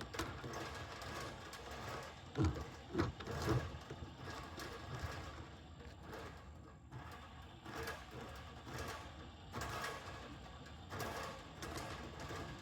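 Drain-cleaning machine running with a steady low rumble, its cable knocking and clattering. There are three sharp knocks between about two and four seconds in.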